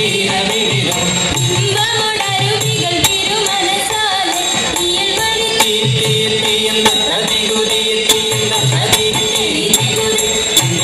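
Margam kali song: singing over a steady low beat, with sharp percussive strikes scattered through it.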